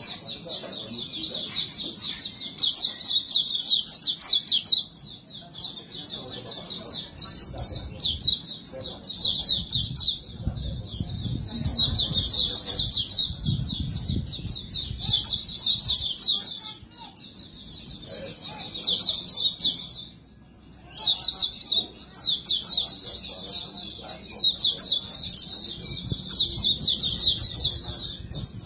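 White-eye (pleci) singing a rapid, unbroken twittering song, with one brief pause about twenty seconds in. This is the nonstop 'bocor' song that bird keepers play as a lure to set other white-eyes singing.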